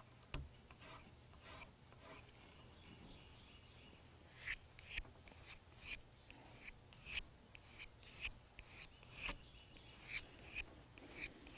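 Knife blade being stropped on a leather rein: light, quick scraping strokes of steel on leather, coming at roughly two a second from about four seconds in, polishing the edge to razor sharpness. A single soft knock near the start.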